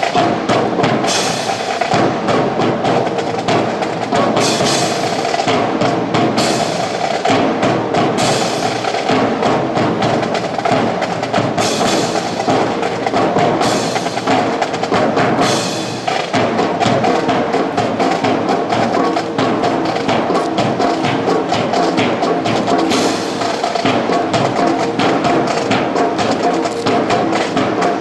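Music with busy, dense percussion, going on steadily throughout.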